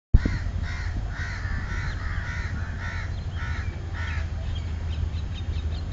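A bird calling repeatedly, about eight calls in the first four seconds, then shorter, fainter high chirps, over a steady low rumble.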